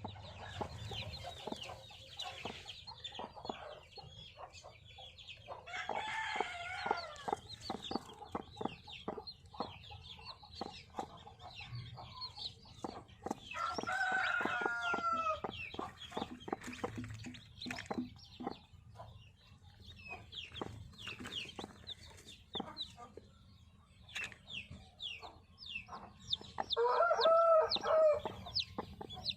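Country chickens: newly hatched chicks peeping almost without pause over a hen's clucking, while a rooster crows three times, each crow lasting about two seconds, the last and loudest near the end.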